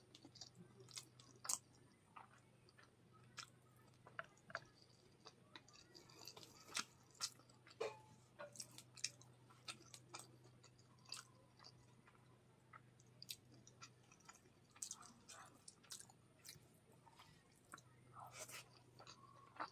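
Faint close-up mouth sounds of a person chewing a mouthful of rice and katla fish curry: scattered soft wet clicks and smacks, along with fingers mixing the rice and taking up a handful.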